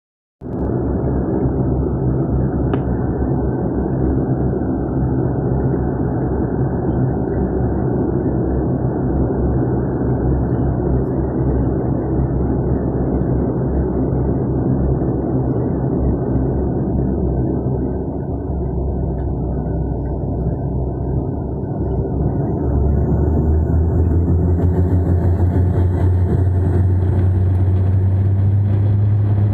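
SpiceJet airliner moving on the ground, a steady engine rumble. About 23 seconds in, the engines spool up, a strong low hum building and a high whine joining, the start of the takeoff run.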